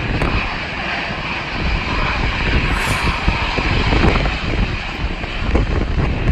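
Jet airliner engines running, a steady noise with a sustained high whine, over gusty wind rumbling on the microphone.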